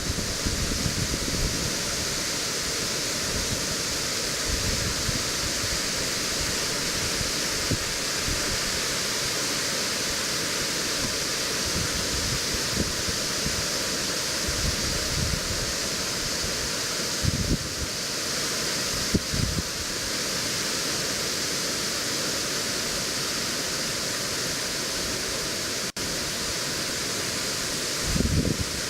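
A tall waterfall, 48 metres high, plunging into its pool with a steady rush of falling water. A few brief low thumps of wind on the microphone can be heard.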